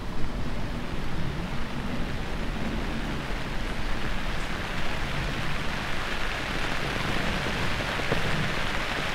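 Steady rain falling on a tent.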